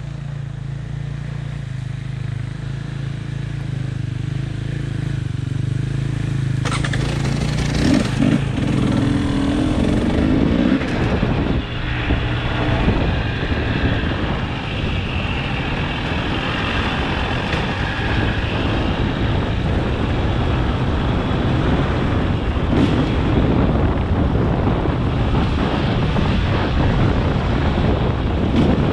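Engine of a ridden off-road vehicle running steadily at low speed, then pulling away about seven seconds in, with a wash of wind and riding noise over it for the rest.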